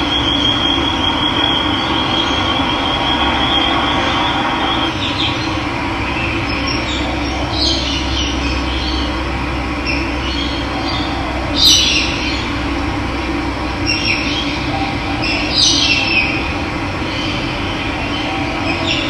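Running water rushing steadily, with birds calling in short high chirps several times, the loudest about two thirds of the way through. A thin high steady tone sounds over the water for the first four seconds or so.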